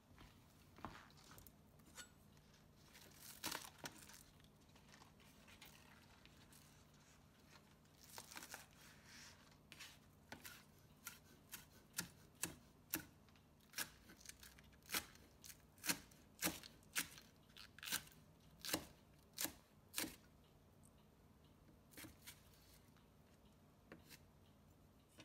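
Chef's knife chopping green onions on a plastic cutting board: sharp knocks of the blade on the board, sparse at first, then a steady run of about two a second, thinning out again near the end.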